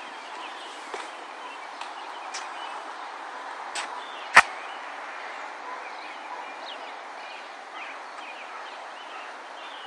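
Outdoor ambience: a steady background hiss with scattered faint short chirps, and one sharp click about four and a half seconds in.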